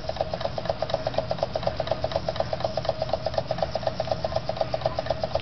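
Jensen 75 model steam engine running steadily on superheated steam, with a fast, even beat of about nine strokes a second.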